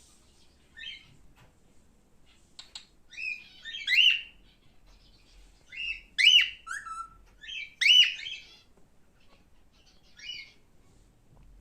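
Male cockatiel calling: short whistled chirps with sliding pitch, loudest in three clusters about four, six and eight seconds in, with fainter chirps between.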